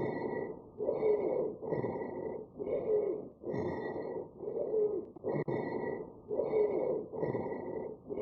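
Recorded abnormal breath sounds: a quick, even run of about ten breaths, each carrying a high-pitched musical squeal.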